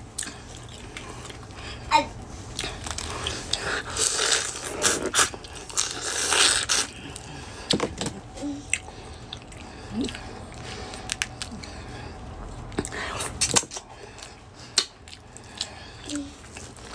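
Close-up eating sounds from a seafood boil: chewing and biting, with scattered sharp clicks and cracks as boiled crawfish shells are broken and peeled by hand.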